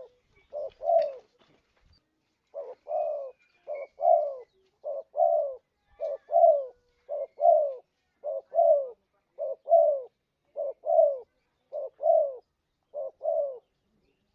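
Spotted dove cooing, the call used as a lure for the species: a string of repeated two-part coos, each a short note followed by a longer falling one, about one a second, with a brief pause about a second in.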